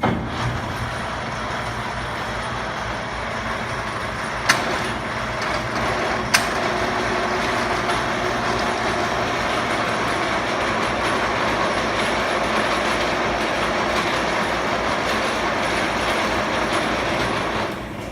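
Monarch 20-inch engine lathe running under power, its geared headstock and spindle giving a steady, dense mechanical whir. It starts up at once, two sharp clicks come about four and a half and six seconds in, and it cuts off shortly before the end.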